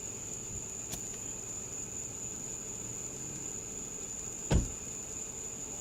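Steady high-pitched chirring of crickets, with a faint click about a second in and a single sharp knock about four and a half seconds in.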